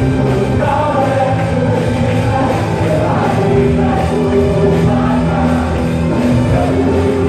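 Contemporary Indonesian worship song playing loud: a band with drums and bass under a sung melody, heard over a church hall's sound system.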